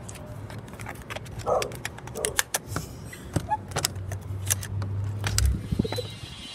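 Hotel room door's electronic keycard lock and metal lever handle being worked by hand: a run of sharp metallic clicks and rattles, with a low thump a little after five seconds as the door opens.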